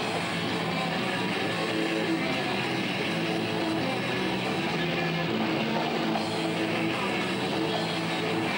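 Live rock band playing loud distorted electric guitar with drums.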